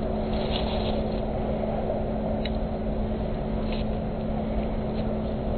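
Steady low outdoor background rumble with a faint, unchanging hum over it.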